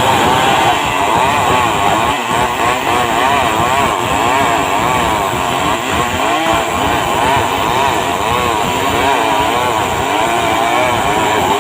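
Stihl 070 two-stroke chainsaw running at high speed while ripping a log lengthwise into boards, its engine pitch wavering up and down continuously as the chain loads and frees in the cut.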